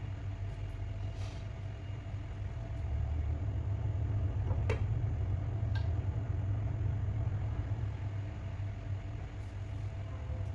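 Steady low electrical hum from the electric hotplate heating a simmering pan of fish. About halfway through, a single light clink as a glass lid is set on the pan, with a fainter tick a second later.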